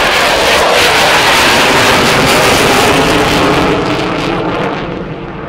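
Jet noise from an Avro Vulcan B.2 bomber's four Rolls-Royce Olympus turbojets as it passes low overhead, loud and steady, then fading over the last second or so as the aircraft moves away.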